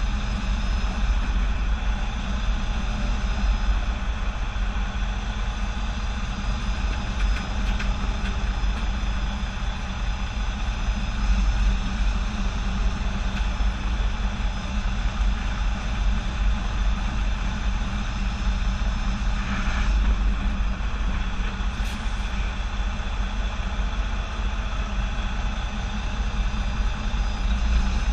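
Semi truck's diesel engine running steadily at low revs while the truck reverses slowly.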